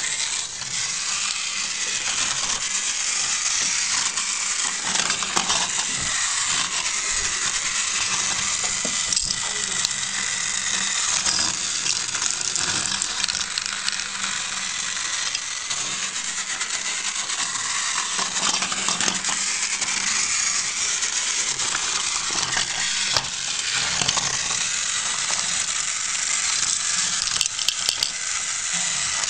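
Small motor and plastic gears of a battery-powered toy train whirring steadily as it runs, with scattered clicks and clatters of plastic track and toy pieces.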